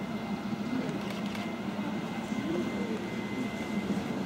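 Two polar bear cubs humming as they suckle from their mother: a steady, low buzzing drone that wavers slightly, the contented sound cubs make while nursing.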